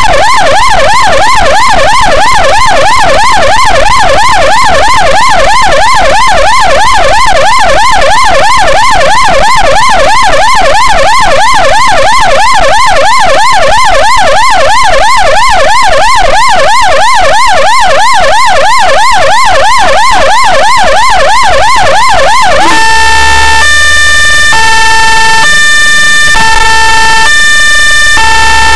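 Ambulance's own electronic siren, very loud: a fast yelp sweeping rapidly up and down in pitch. Near the end it switches to a slower stepped pattern of alternating held tones.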